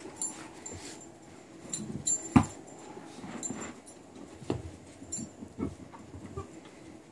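Corgi nosing and pawing a rugby ball across carpet: scattered soft knocks and thumps at irregular intervals, the loudest about two and a half seconds in.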